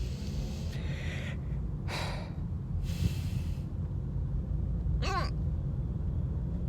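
A person with the hiccups drawing several sharp breaths, then letting out one short, voiced hiccup about five seconds in, over a steady low rumble.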